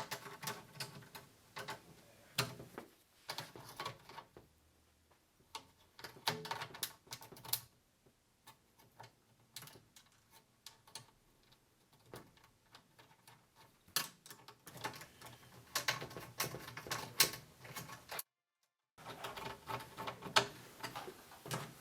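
Molded levelers being pushed onto the bottoms of a laundry tub's legs: irregular light clicks and taps of plastic parts being handled and fitted.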